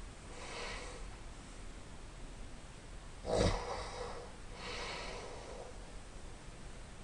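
A sleeping person's noisy breathing while snoring, with one short, loud snort about halfway through; softer breaths come before and after it.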